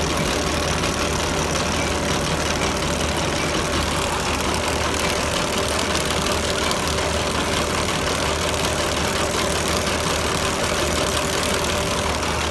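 An engine idling steadily, with a continuous hiss over it.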